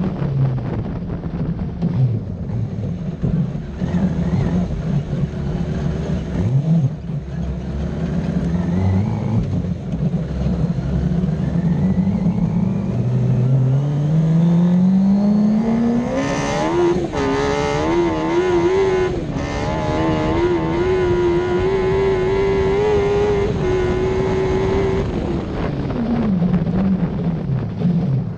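Suzuki GSX-R750 inline-four motorcycle engine in a sand-rail buggy, pulling at varying revs, then accelerating hard on a top-speed run with a steeply rising pitch. It shifts up with a couple of short dips in revs, holds high revs flat out for several seconds, then drops away near the end as the throttle comes off.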